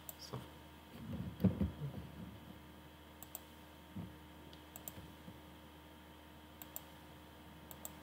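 Computer mouse clicking a few times, the clicks often in quick pairs, over a faint steady hum. A brief low rumbling noise about a second and a half in is the loudest sound.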